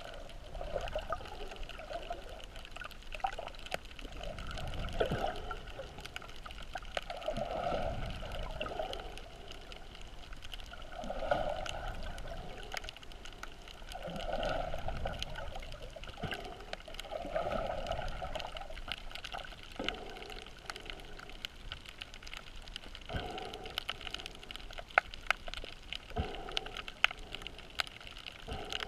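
Muffled underwater water movement heard through a GoPro's waterproof housing: a dull sloshing that swells every three seconds or so, with scattered sharp clicks, most of them near the end.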